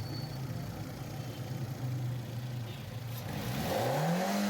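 2010 FAW V2 car engine idling, then revved once near the end, its pitch climbing sharply. New spark plugs have cured the misfire, though the mechanic judges the engine weak, with worn piston rings.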